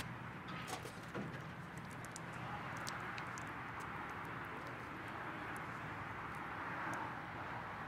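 Low, steady outdoor street ambience with a faint hum of distant traffic, and a few light clicks and handling noises in the first few seconds.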